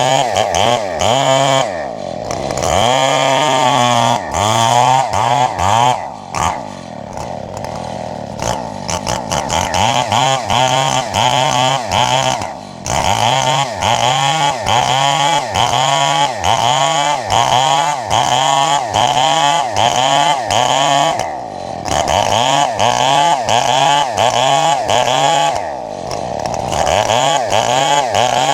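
Chainsaw running and cutting wood, revved up and down over and over so its pitch rises and falls about once a second. It drops back briefly to a lower, quieter running a few times.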